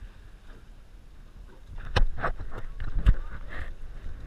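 Wind and sea noise around a small open fishing boat, with a steady low rumble. From about halfway through come a run of sharp knocks and thumps, two of them much louder than the rest.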